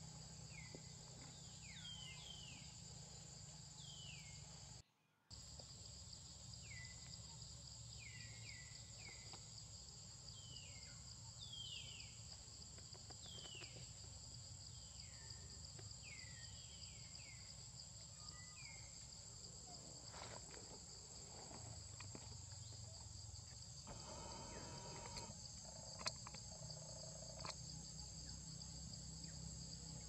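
Faint steady high-pitched insect drone, as of crickets or cicadas, with short downward-sliding chirps repeating every second or so through the first two-thirds. The sound cuts out briefly about five seconds in.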